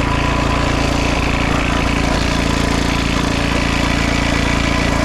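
Small petrol engine running steadily at a constant speed.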